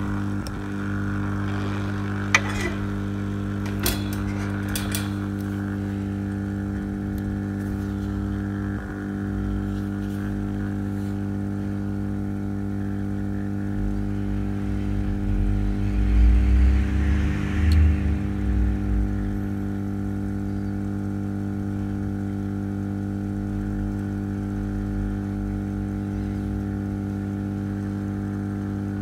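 Hot-air rework station blowing steadily on a surface-mount EEPROM to melt its solder for removal: a steady hum and hiss of air. There are a few sharp clicks in the first few seconds, and some low rumbling for a few seconds around the middle.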